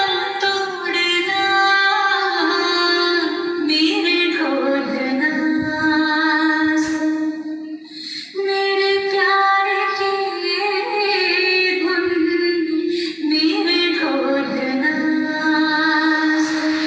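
A song with a female lead vocal playing loudly through an amplifier and 8-inch speakers during a sound test, with a short break in the singing a little before 8 seconds in.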